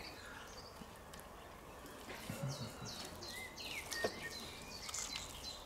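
Faint bird song: a run of quick, repeated descending chirps starting about two seconds in. About four seconds in there is a single light click as the knife cuts down through the roast to the plastic cutting board.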